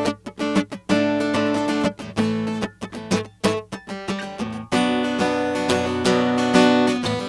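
Tagima California acoustic guitar strummed through its pickup and a mixing desk: choppy chords with short damped stops, then fuller, ringing strums from about five seconds in.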